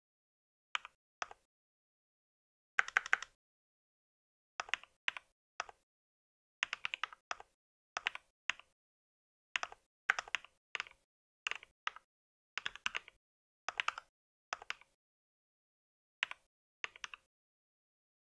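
Typing on a mechanical keyboard: short runs of a few keystrokes at a time, with silent pauses of up to a second or so between runs.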